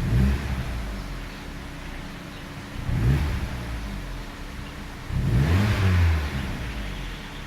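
Vauxhall Corsa OPC/VXR's turbocharged 1.6-litre four-cylinder engine being revved three times from idle, the pitch rising and falling with each blip. The owner is showing a strange noise the engine has made since an oil change.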